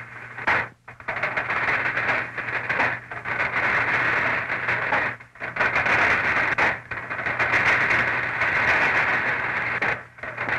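Metal cans of blasting agent rolling along a sectional skate-wheel conveyor, a continuous rattling clatter in runs broken by brief pauses about a second in, halfway through and near the end. A steady low hum runs underneath.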